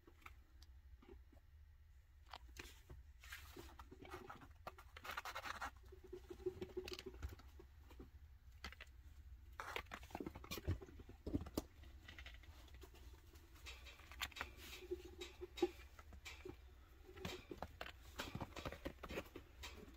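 Baby chinchillas' feet pattering and claws scratching on a fabric playpen floor and its mesh side panel: a scatter of faint, irregular taps and scrapes.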